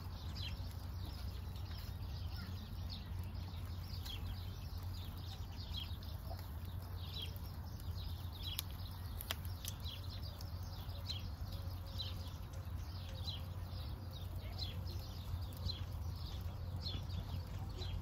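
Many small birds chirping, with short, falling calls repeated irregularly throughout, over a steady low hum.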